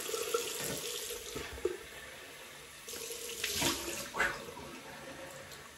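Cold tap running into a bathroom sink as a face is rinsed after a shave, with water splashing, loudest around three and a half and four seconds in.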